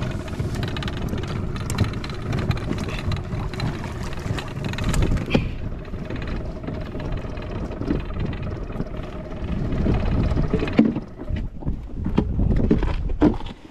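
Steady wind and water noise aboard a small inflatable boat at sea, strongest at the low end, with scattered knocks and bumps.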